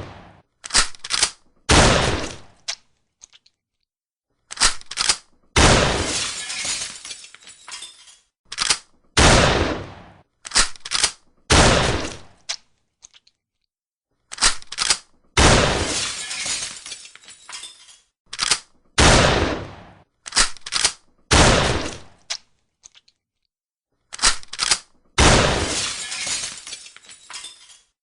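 Shotgun firing a series of shots, each a sudden blast with a decay of about a second, with short sharp metallic clicks of the action being worked and reloaded around them.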